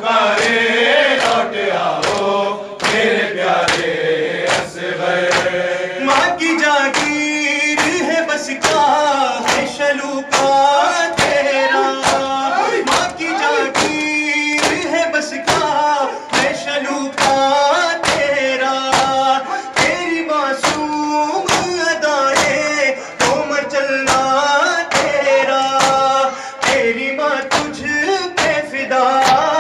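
Men's voices chanting an Urdu noha (Shia lament), a lead reciter with the group joining in, over a steady beat of hands striking chests (matam), about two strikes a second.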